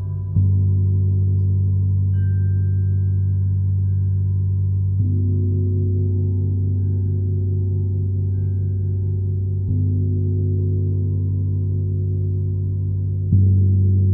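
26-inch Paiste symphonic gong played slowly with a felt mallet: four strokes about four and a half seconds apart, each renewing a deep, sustained ringing that carries on between strokes.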